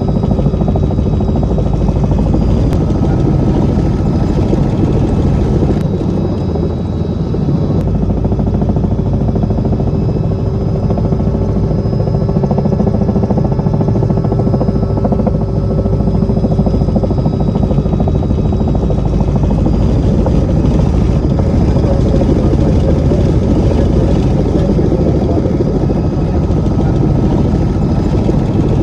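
Helicopter engine and rotor running steadily.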